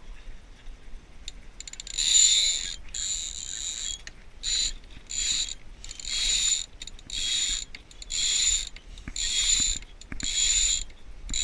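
Sailboat halyard being hauled up in repeated pulls while the sail is hoisted, the line squealing through the rigging about once a second, starting about two seconds in.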